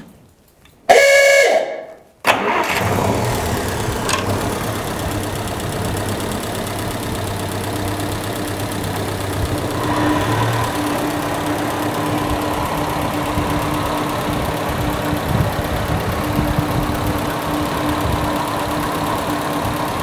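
The gasoline engine that drives the shop's overhead belt line starting up: a short, loud pitched burst about a second in, then the engine running steadily. A steady hum joins about eight seconds in.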